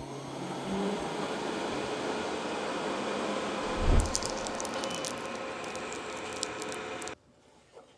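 Laser engraver running while it engraves an aluminium backplate: a steady airy whir with faint tones in it. There is a low thump about four seconds in, light ticking after it, and the sound cuts off suddenly just after seven seconds.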